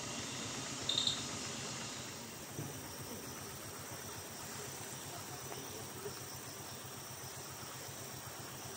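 Forest ambience: a steady high insect drone of crickets or cicadas over a low rumble. A brief high chirp comes about a second in.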